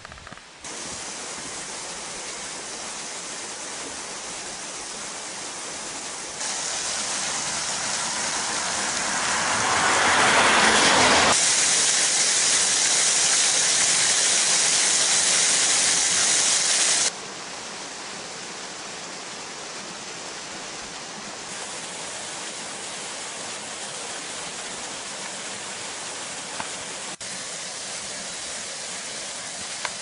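The Bigăr waterfall's thin streams falling over mossy rock into the stream below, a steady rush of water. Its level jumps up and down abruptly several times and is loudest in the middle. The flow is low after a long drought.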